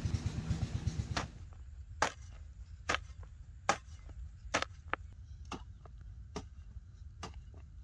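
A long-handled hand hoe chopping into dry field soil in steady strokes, a sharp strike a little more often than once a second, starting about a second in.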